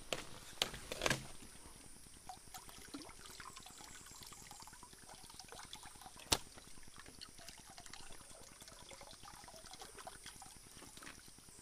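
Shallow stream water trickling and splashing around hands working a white plastic water pipe. A few knocks come in the first second or so, and a single sharp click comes about six seconds in, as the pipe is handled.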